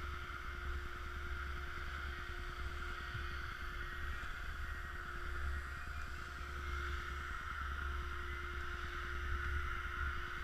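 Steady mechanical drone with faint constant tones, over a low rumble of wind on the microphone.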